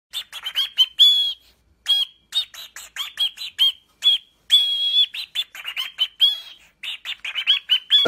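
Cockatiel chirping and whistling: a fast string of short, high chirps with a few longer held whistles mixed in.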